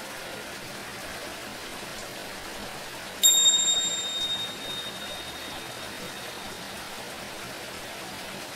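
Steady running water, with tingsha cymbals struck once about three seconds in, ringing high and clear and fading away over a few seconds.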